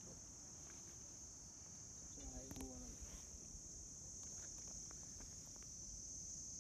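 Insects chirring in a steady, faint, high-pitched drone that does not let up. A voice speaks briefly about two and a half seconds in.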